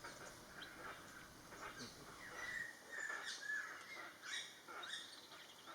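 Wild birds calling: a faint, irregular string of short chirps and quick sweeping notes, a few each second.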